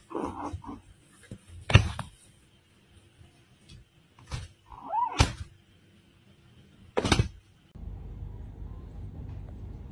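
A kitten mewing a few short times, one cry rising and falling in pitch about five seconds in, among four dull thumps; the loudest thumps come about two and seven seconds in. Near the end a steady low background rumble sets in.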